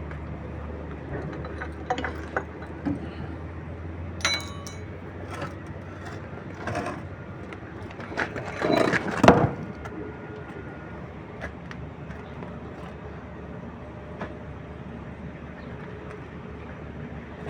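Scattered metal clinks and knocks of hand tools working on a bulldozer's tilt-blade hydraulic hose fitting, the loudest cluster about halfway through, over a steady low hum that fades after the first few seconds.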